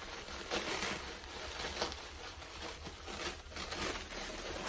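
Tissue paper being pulled out of a box and unfolded by hand, rustling and crinkling irregularly.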